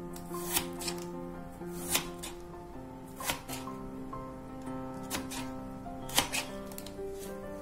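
Knife slicing a raw peeled potato into fry-sized sticks, each stroke ending in a sharp tap on the wooden cutting board: five or six strokes a second or so apart, the loudest about six seconds in. Background music plays throughout.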